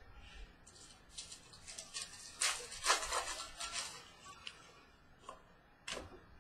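Trading cards being slid and flicked through by hand: a run of short swishes from about a second in to four seconds, and one more flick near the end.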